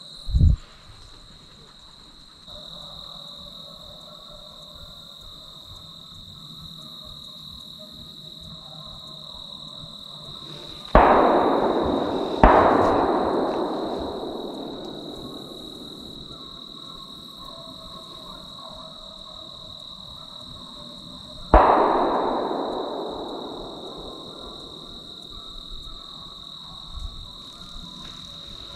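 Three loud gunshots, each echoing and fading away over several seconds. The first two come about a second and a half apart, about eleven seconds in, and the third about ten seconds later. Under them runs a steady high insect buzz.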